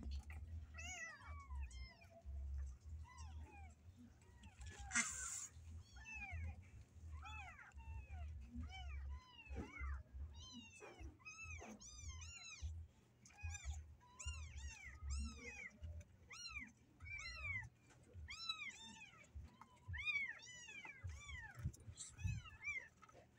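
Several young kittens meowing over and over, thin high calls that rise and fall, often overlapping and coming faster in the second half. About five seconds in there is a short burst of hiss-like noise, and a low rumble runs underneath.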